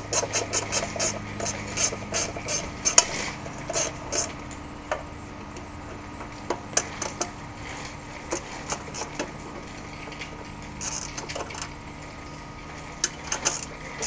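Hand tools working on metal engine parts: irregular clicks and clinks, coming thickly in the first few seconds and more sparsely afterwards, as parts are unbolted from a small riding-mower engine.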